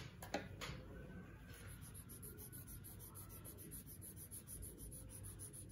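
Faint scratching of sketch pens coloring on paper, with a few light taps in the first second.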